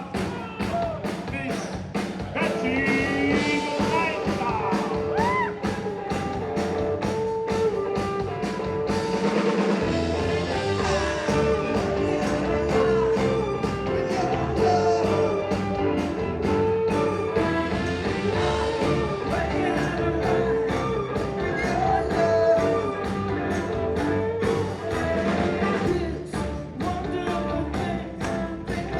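Live rock band playing with singing over a steady drum beat; the bass comes in about ten seconds in.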